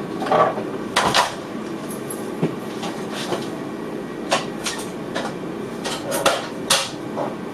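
Steady train noise inside the cab of an NS VIRM double-deck train, with a series of sharp, irregular clicks and knocks, about eight or nine over several seconds.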